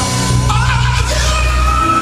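Live gospel band and singers performing over a steady bass line, with a voice rising to a high held note about half a second in.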